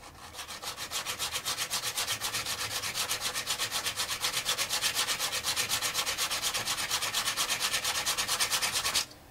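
A carbon brush for an angle grinder rubbed by hand in quick, even back-and-forth strokes, several a second, on an abrasive disc laid flat; the rubbing stops suddenly near the end. The brush is being worn down a fraction of a millimetre at a time to fit its holder.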